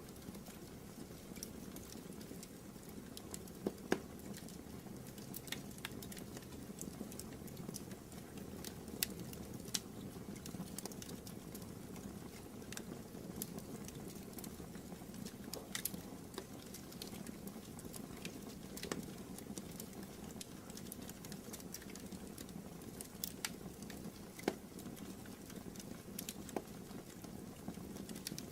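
Wood fire burning in a fireplace: a steady low rush with irregular sharp crackles and pops, the loudest about 4 and 9 seconds in.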